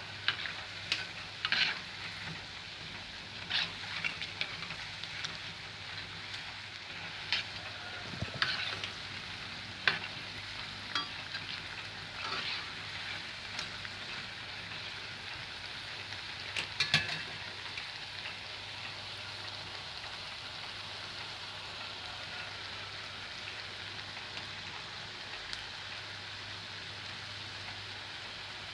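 Flour-battered broccoli florets frying in hot oil with a steady sizzle. For roughly the first 18 seconds a utensil knocks and scrapes against the pan now and then as the pieces are stirred; after that only the sizzle continues.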